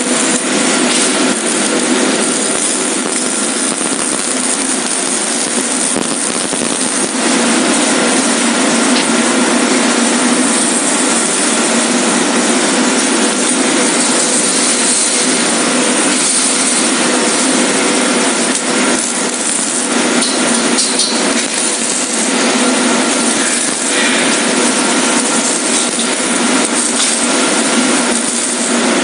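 Steady, loud factory noise from MIG welding of steel mesh fence panels: a continuous hiss that barely changes in level.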